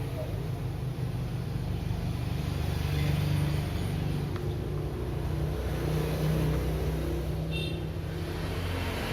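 A low, steady mechanical rumble that swells a little about three seconds in and again about six seconds in.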